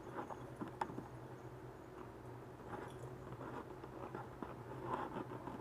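A person chewing food close to the microphone, with soft wet mouth smacks and small clicks scattered throughout, over a low steady hum.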